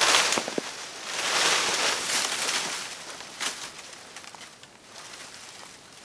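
A dry dead branch being pulled free of scrub and dragged: twigs snapping and crackling, with a long rustle of brittle branches scraping through dry undergrowth. There is a sharp snap at the start and another crack about three and a half seconds in.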